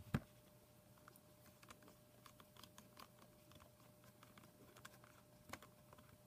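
Faint, irregular small clicks and taps of a precision screwdriver working at the tiny screws on an HP Slate 7 tablet's case, with a sharper click right at the start and another about five and a half seconds in. A faint steady hum lies underneath.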